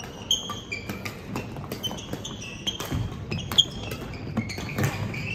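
Badminton rally: court shoes give many short high squeaks on the hall floor, among sharp racket strikes on the shuttlecock. The loudest strikes come just after the start and about three and a half seconds in.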